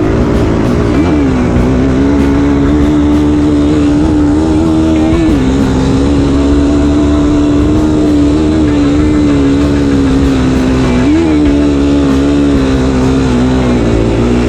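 Off-road vehicle engine running loud at high, steady revs, its pitch briefly rising and dipping a few times as the throttle changes, over a constant low rumble.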